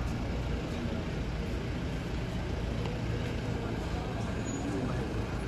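A steady low rumble with faint background voices of people talking.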